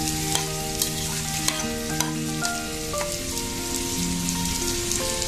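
Chopped onion sizzling as it fries in hot oil in a pan, with the occasional sharp click of the spatula against the pan as it is stirred. A soft background melody plays underneath.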